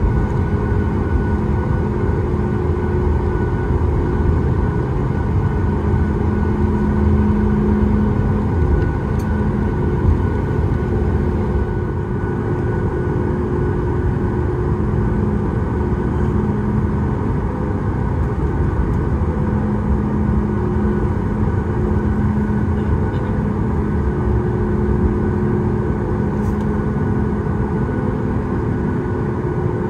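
Cabin noise of a Boeing 737 MAX 8 heard from a window seat: its CFM LEAP-1B turbofan engines and the airflow make a steady, loud rumble with a few steady tones. A low hum rises and fades several times.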